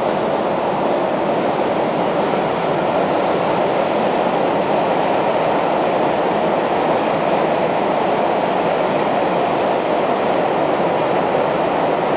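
Freight train of empty car-transporter wagons rolling past behind a noise barrier: a steady, even rolling noise of wheels on rails.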